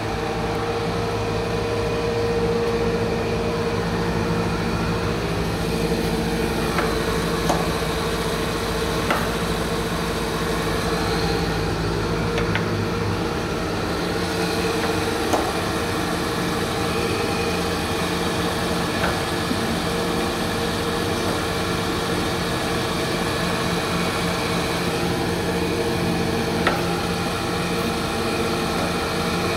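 Schmaltz R4-2500 cylindrical grinder running under power: a steady machine hum with several held tones and a few faint ticks. The deepest rumble drops away about twelve seconds in.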